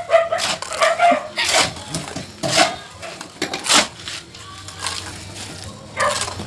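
Irregular sharp knocks and scrapes from construction work, several in the first few seconds, then a quieter stretch and one more near the end.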